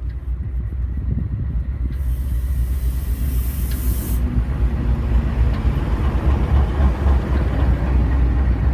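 Amtrak Genesis diesel locomotive and its coaches approaching and passing close by, with a heavy low rumble growing steadily louder as the train nears. A brief hiss about two to four seconds in.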